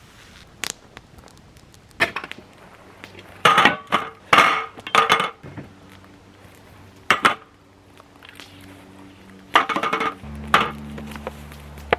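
Metal cookware and utensils clattering and clinking as they are handled, in a string of short bursts. A steady low hum comes in near the end.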